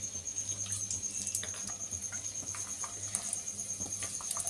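Cashew nuts frying in hot fat in a pan: a faint, steady sizzle with scattered small crackles and pops.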